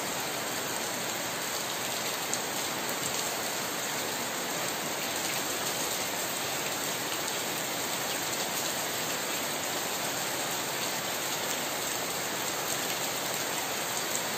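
Heavy rain falling steadily, splashing on a flooded paved yard and on tree leaves.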